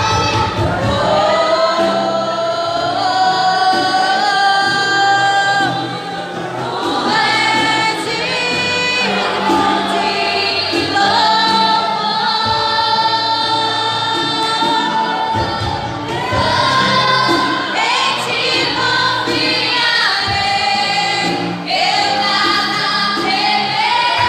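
Gospel worship song: a group of voices, women's among them, singing together in long held phrases of a few seconds over a steady low accompaniment.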